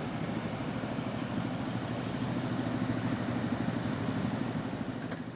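Night insects chirping in a steady fast pulse, about five chirps a second, over a low steady engine-like hum.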